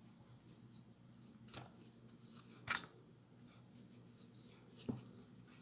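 Hands working a small fabric doll and a wooden stick: a few faint, brief rustles and taps, the sharpest near the middle, over a low steady hum.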